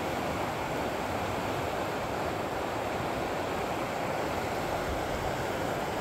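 Steady rushing of a mountain river's current.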